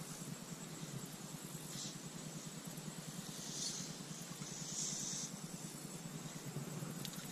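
Fly line hissing through the rod guides and the air during casting and stripping: a few short swishes over a steady low rumble.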